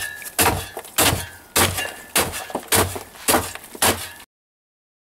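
Lumber boards pounding lump charcoal inside a plastic drum to crush it into gravel-sized pieces: a string of about eight heavy crunching strikes, roughly two a second. The sound cuts off suddenly about four seconds in.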